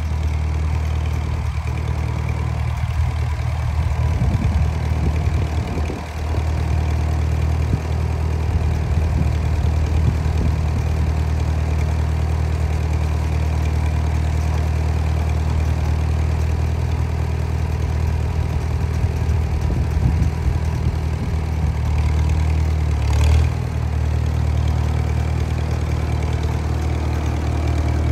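Farmall H tractor's four-cylinder engine running steadily at low revs as the tractor drives slowly, with a short louder burst near the end.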